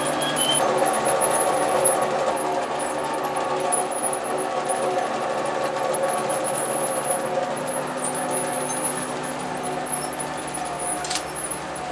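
Noodle-making machine with a roller-chain conveyor running steadily: a constant mechanical hum with a faint high chatter, and a single sharp click about eleven seconds in.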